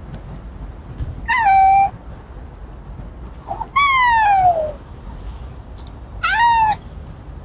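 An animal calling three times: loud meow-like cries, each under a second, the middle one sliding down in pitch.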